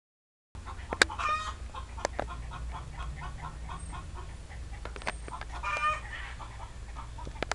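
Chickens clucking: a run of short clucks, a few a second, broken by two longer pitched calls, about a second in and again near six seconds. The sound cuts in after half a second of silence at the start.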